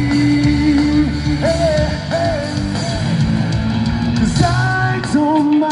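A live reggae-rock band playing through a concert PA: drums, bass and electric guitars, with a held, slightly wavering melody note over them. Shorter melodic phrases come in about a second and a half in and again near the end.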